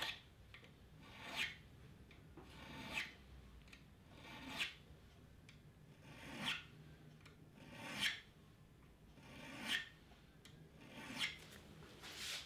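Small metal file being stroked across the metal fret wires of a guitar neck, dressing the frets: a slow, even rasping, about eight strokes, each one swelling to a peak roughly every second and a half.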